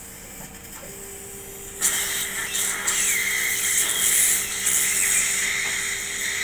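Surgical suction hissing steadily, switching on suddenly about two seconds in. Beneath it runs a steady low hum from the implant motor turning the handpiece as the implant is driven in.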